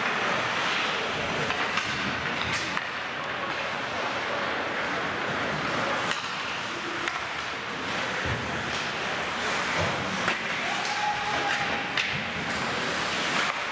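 Ice hockey play in a large rink: a steady hiss of skates on the ice, with a few sharp knocks of sticks and puck against the boards.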